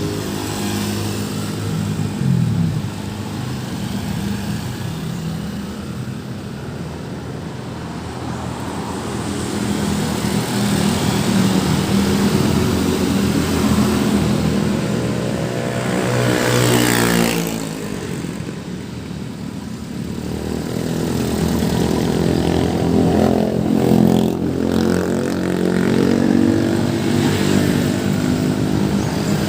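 Busy road traffic: engines of vehicles running past one after another. About halfway through, one vehicle passes close, its engine sound swelling and dropping in pitch as it goes by.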